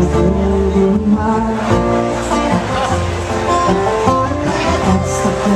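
Live acoustic band playing an instrumental passage in a bluegrass/country style: upright bass plucked under strummed and picked string instruments.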